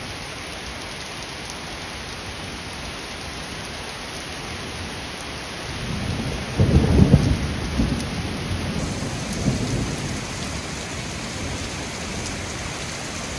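Heavy thunderstorm rain falling steadily on the road and surfaces. About six seconds in, a close thunder rumble swells up, is loudest a second later, and rolls away over the next few seconds.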